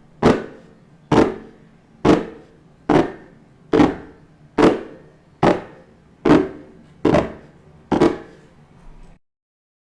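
A series of sharp knocks at an even pace, a little under one a second, each with a short ringing tail; ten strong strikes, then a much fainter one just before it cuts off.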